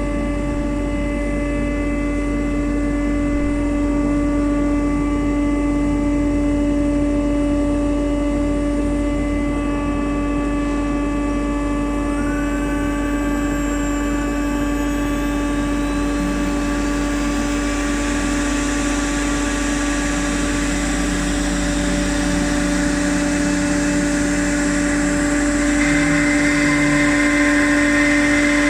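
CNC router running: a steady, high-pitched spindle whine over a mechanical hum, with a rising whine about 12 seconds in and a louder, hissier cutting noise near the end.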